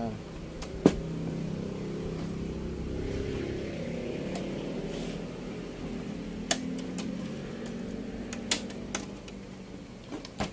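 Scattered sharp clicks and light knocks of plastic and metal as an LED TV's frame and panel are pried and handled during disassembly, the loudest about a second in, over a steady low hum.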